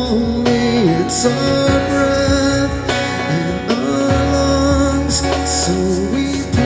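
A man singing a slow worship song, accompanying himself on an electronic keyboard with held chords over a steady bass.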